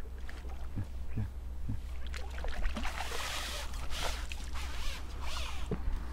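Water splashing and pouring as a carp is netted and the landing net is lifted out of the lake, water streaming off the mesh for a few seconds in the second half, after a few soft knocks early on.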